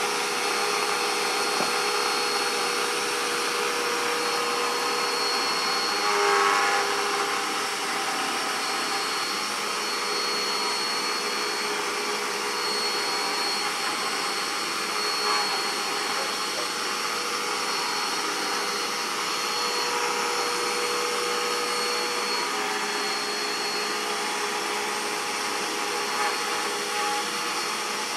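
Vacuum cleaner running steadily, a constant motor noise with a high whine. A brief, louder pitched sound rises over it about six seconds in.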